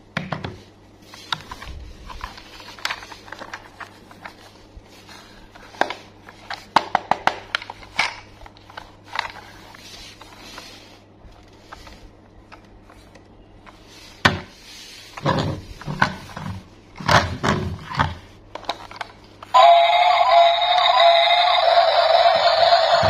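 Hard plastic clicks and knocks as a battery-powered Thomas toy train is handled and switched on. About 19.5 seconds in, the toy's speaker bursts into loud electronic tones, a bright alarm-like sound effect or tune, that carries on to the end.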